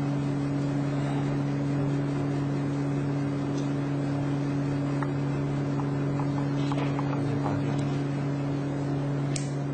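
A machine running with a steady low hum, two constant tones, and a few faint clicks about halfway through and near the end.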